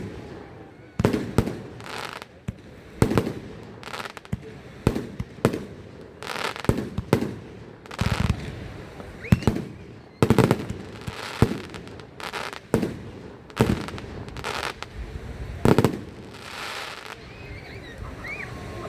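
Fireworks display: a rapid run of bangs from bursting shells, one every second or so, some trailing off in crackle, with a few short rising whistles near the end.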